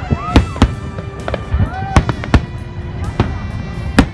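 Aerial fireworks shells bursting overhead in quick, irregular succession, about ten loud bangs.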